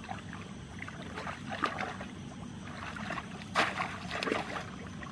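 Shallow muddy water splashing and sloshing as hands grope through it for fish and legs wade, in irregular bursts with the loudest splash about three and a half seconds in.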